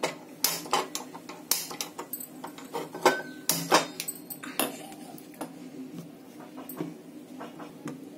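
Handheld gas lighter clicked again and again at a gas stove burner to light it: a run of sharp, separate clicks, most of them in the first four seconds, fewer after.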